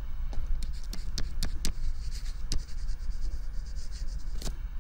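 Stylus writing by hand on a tablet screen: a run of sharp taps and short scratchy strokes, over a steady low hum.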